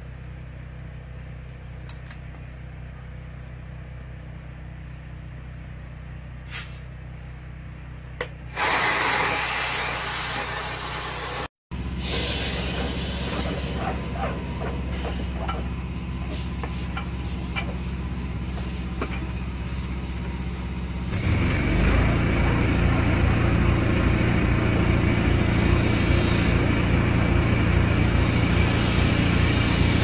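Dryer vent cleaning equipment running: a steady rush of air over a low motor hum as a rotary brush on a flexible rod spins in an exterior dryer vent, blowing lint out. A quieter steady hum comes first; the rushing noise starts about eight seconds in, breaks off briefly near twelve seconds, and grows louder again about twenty seconds in.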